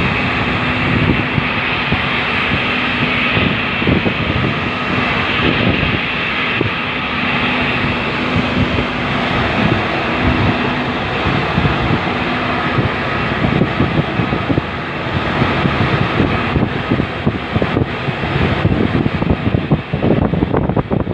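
Boat engine running steadily, with a constant drone, under a dense wash of rain and wind noise.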